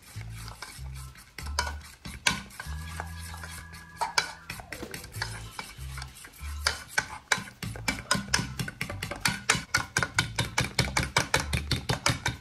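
Egg whites with cornflour being beaten by hand with a metal spoon in a stainless steel saucepan: a rapid run of clicks of metal against the pan. The clicks grow quicker and more even about halfway through, at roughly four to five strokes a second.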